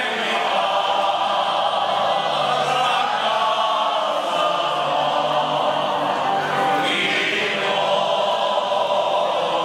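Men's choir singing a Moravian folk song together in chorus, many male voices holding long notes.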